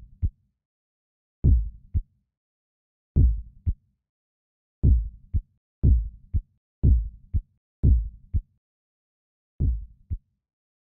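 Deep heartbeat-style double thuds, a heartbeat sound effect: each beat is a strong thump followed by a lighter one, with silence between beats. The beats come about every second and a half, quicken to about one a second through the middle, then slow again, the last falling about ten seconds in.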